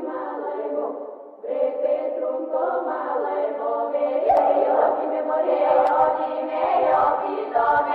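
Choir-like singing of several voices holding and shifting long notes, which dips briefly about a second in and then swells again.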